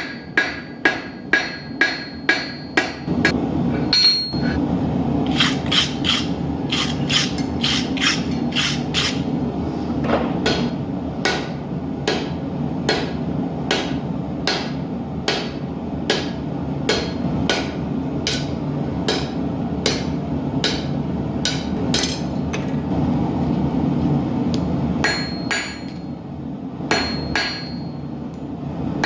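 Hand hammer striking hot steel on an anvil in a steady rhythm, about two to three blows a second. The blows ring out near the start and again near the end. From about three seconds in until near the end a steady roar of a gas forge runs under them.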